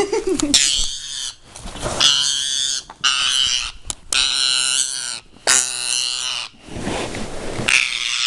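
Pet parrot giving about seven harsh, raspy screeches in a row, each under a second long. These are the distress or defensive calls of a frightened bird that is not hand-trained being held.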